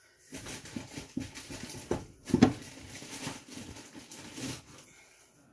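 Spice jars being rummaged in and taken down from a cupboard: irregular clicks, rattles and knocks of jars against each other and the shelf, with the loudest knock about two and a half seconds in.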